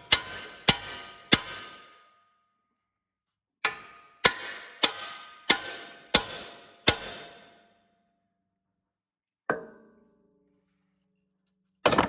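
Hammer striking a pickle fork wedged between a lower ball joint and the steering knuckle, driving it in to separate the joint. Each blow is a sharp metallic clang that rings briefly: three strikes, a pause, six more about two-thirds of a second apart, another pause, a single hit, then a quick double hit at the end.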